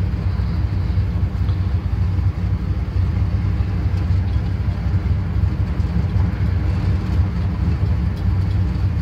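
1979 Chevy C10 pickup's engine running with road noise, heard from inside the cab while driving: a steady low rumble with no revving. The engine is still cold.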